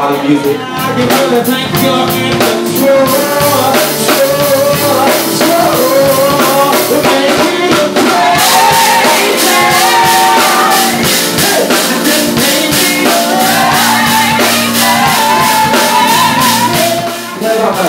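Live soul band playing unplugged: a drum kit keeps the beat under a male singer's gliding vocal line. The drums get busier, with steady cymbal strokes, about halfway through.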